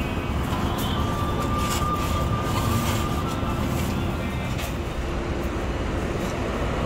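Steady low rumble of road traffic, with a faint thin whine in the first few seconds.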